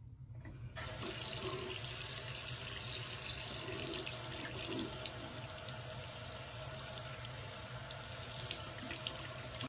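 Water from a sink tap, turned on about a second in and then running steadily.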